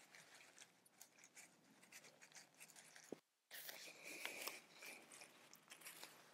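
Faint handling sounds at a tent corner: light clicks and rustling of nylon fabric and pole hardware as the pole end is worked free. The sound cuts out completely for a moment a little after three seconds in.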